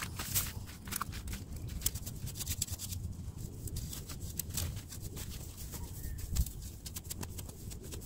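Footsteps in rubber clogs scuffing over dry soil and wood-chip mulch, with the crackle and rustle of dry plant debris and soil being handled while weeding: many small, sharp, irregular clicks.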